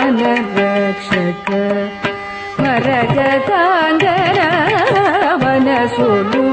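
Carnatic music in raga Hindolam, Adi tala: a melodic line sliding and wavering through ornamented pitches over a steady drone, with drum strokes throughout.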